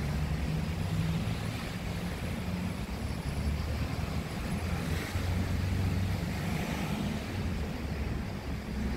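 City street traffic: a steady low rumble of cars on the avenue.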